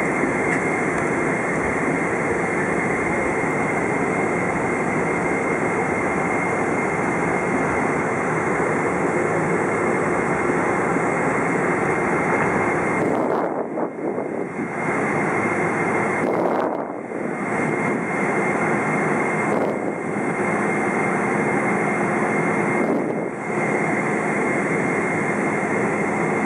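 Boeing 777-200's GE90 turbofan engines running, heard from inside the passenger cabin as a loud, steady rush of engine noise with a thin steady whine on top. The sound dips briefly four times in the second half.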